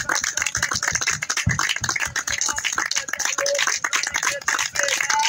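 A group clapping hands in a fast, steady rhythm, with rattling percussion, between chanted verses.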